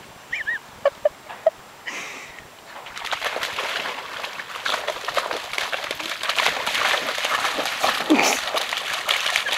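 A dog splashing through wet mud and shallow water, a dense, irregular patter of splashes that sets in about three seconds in and carries on. A few short high cries come near the start.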